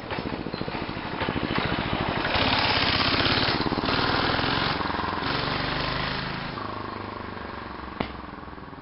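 Mini bike's Tecumseh 5 hp single-cylinder engine running, growing louder over the first few seconds, holding, then slowly fading. A sharp click comes about eight seconds in.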